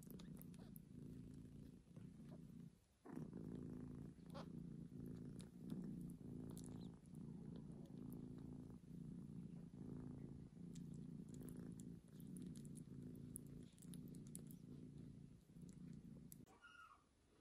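Mother cat purring close by as her newborn kittens nurse, a low rumble that swells and fades with each breath, with a short break about three seconds in. A kitten gives a brief high mew near the end.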